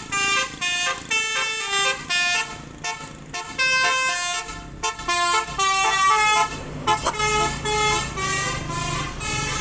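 Basuri telolet horn, a multi-tone musical vehicle horn, playing a tune of short notes that change pitch every fraction of a second. A low steady hum joins underneath about halfway through.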